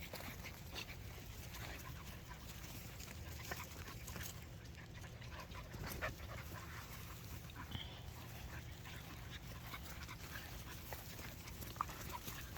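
Kerry Blue Terrier puppies panting, with scattered small clicks and scuffles.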